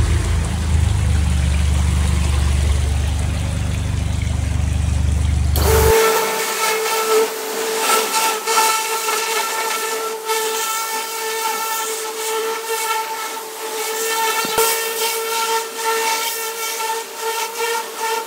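A low steady hum for about the first six seconds, then a pressure washer spraying the bare steel of a chemically stripped 1936 Ford pickup cab: a steady hiss with a whistling whine, with water hitting the metal, as the stripping chemical is rinsed off.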